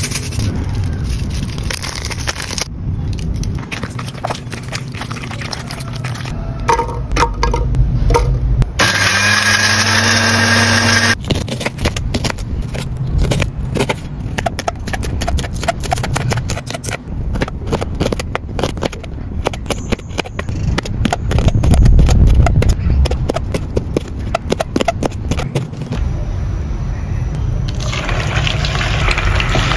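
Kitchen sounds: a knife slicing onion on a wooden chopping board, many quick irregular taps, then hot oil sizzling as chicken pieces go into a frying pan near the end.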